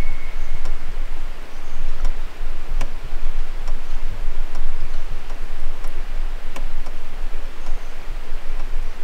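Canoe being paddled slowly on calm water: the paddle swishes and drips, with a few sharp clicks at irregular intervals over a steady low rumble.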